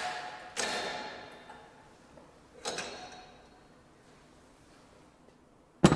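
Sharp metallic clicks with a ringing tail, three of them in the first three seconds, as a hydraulic cylinder and puller press a wheel hub out of its bearing; the sound then dies away to near quiet.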